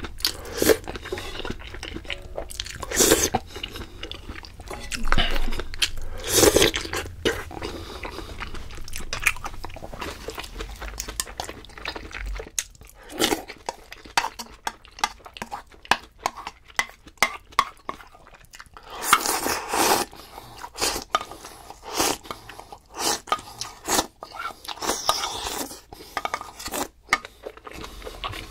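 A person eating close to the microphone: steady chewing and biting with crunchy, wet mouth clicks, broken by a few louder bites.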